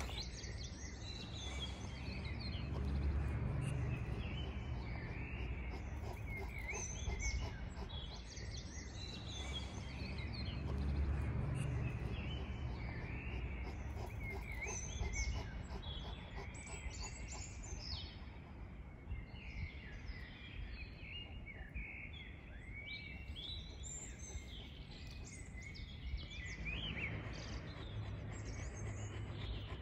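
Songbirds singing as they wake before dawn: many short chirps and whistled phrases overlapping throughout, over a low rumble that swells twice in the first half.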